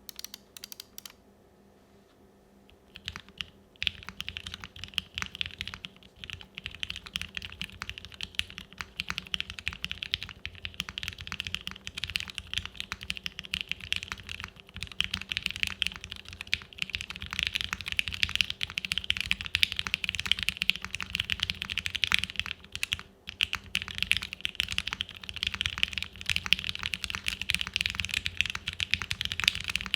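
Fast, continuous typing on a Unikorn R2.1 mechanical keyboard with lubed Gateron Ink Black V1 linear switches in a POM half plate and CRP keycaps. A couple of single keystrokes come first, then a steady run of rapid key strikes starts about three seconds in.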